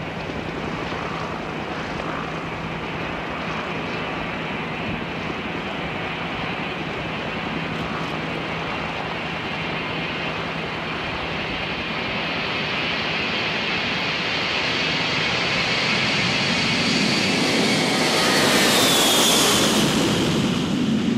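Four jet engines of a Boeing 707 (CC-137) running with a high whine. The sound grows louder through the second half and peaks near the end as the aircraft passes on its takeoff roll, the whine falling in pitch as it goes by.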